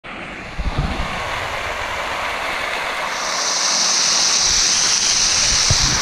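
Waterfall pouring onto a rock ledge: a steady rush of falling water. From about three seconds in, a brighter hiss grows as the spray comes close to the microphone, with a few low bumps of wind on the mic.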